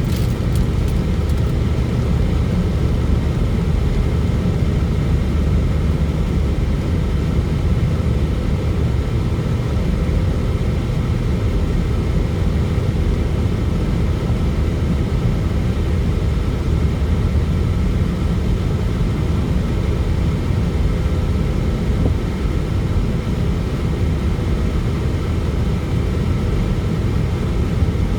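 Steady low drone of a car driving, heard from inside the cabin: road and engine noise with no hail impacts.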